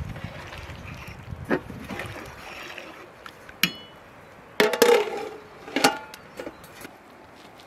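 A metal skimmer stirring liquid in a large aluminium cooking pot, knocking and clinking against the pot's side. A little past halfway comes a cluster of ringing metallic clanks as the aluminium lid is lifted and set back on the pot, the loudest sound here, with one more clank shortly after.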